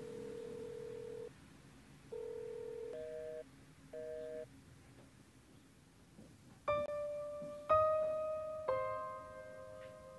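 Telephone line tones in a handset: a steady tone twice, then two half-second pulses of a busy signal. After a pause, a piano plays three slow notes about a second apart as background music begins.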